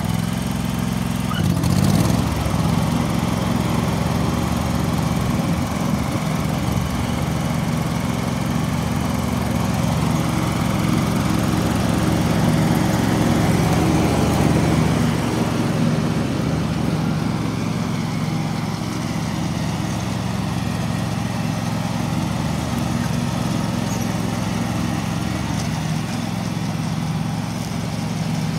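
John Deere LT180 lawn tractor's engine running steadily, a continuous hum, while the tractor is driven slowly across the lawn.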